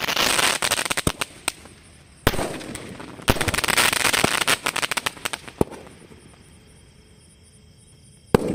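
Multi-shot aerial firework cake firing: bangs followed by dense crackling from crackling stars, with further loud bangs about two and three seconds in. The crackling dies away after about five seconds, and another shot goes off near the end.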